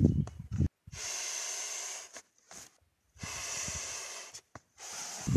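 A man blowing two long breaths into the valve of a Mountain Equipment self-inflating sleeping mat to top it up by mouth, because it has not self-inflated enough. Handling knocks and rustles at the start and again near the end.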